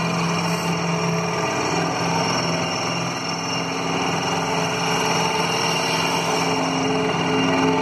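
Steady engine drone from heavy construction machinery, a crawler crane and a CAT excavator, mixed with cars passing on a wet road. The engine tones drift slightly up and down, with no impacts or pile strikes.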